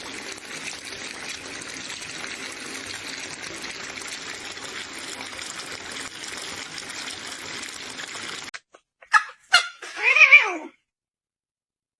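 Steady running water that cuts off suddenly. It is followed by a few short sharp sounds and a cat's single wavering meow near the end.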